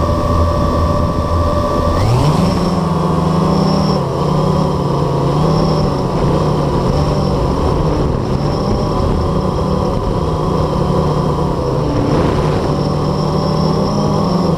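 Blade 350 QX quadcopter's four electric motors and propellers, heard through its onboard camera: a steady low hum on the ground, then a quick rise in pitch about two seconds in as it lifts off. After that, a buzzing whine that wavers up and down in pitch as it flies.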